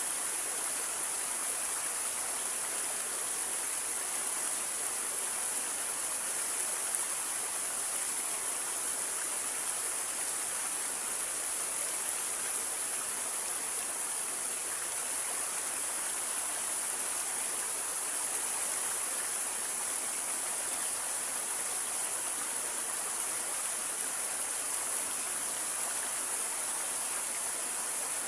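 Small waterfall and clear stream water splashing and rushing steadily.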